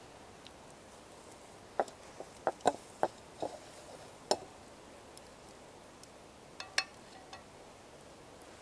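Cooking utensils and dishes clinking: about ten light, sharp knocks and clinks in irregular bunches, with a brief metallic ring on one of them near the end.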